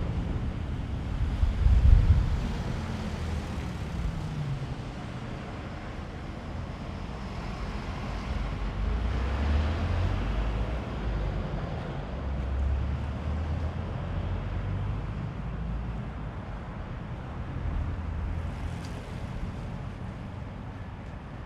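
Wind buffeting the action camera's microphone in irregular gusts, low rumbles over a steady rushing hiss, the strongest gust about two seconds in. A low hum falls in pitch over the first few seconds.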